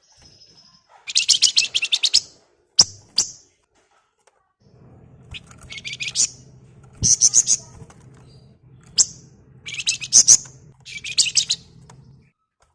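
Wergan Jawa (flamboyan) birds singing in repeated bursts of fast, rattling trilled chatter, each lasting about a second, with a few short single notes between them. A faint low hum runs underneath from about five seconds in.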